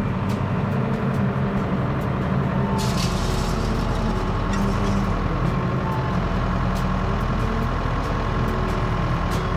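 Tractor engine running steadily while its hydraulics unfold a V-shaped wheel rake, with faint clicks and two short rushing noises about three and four and a half seconds in.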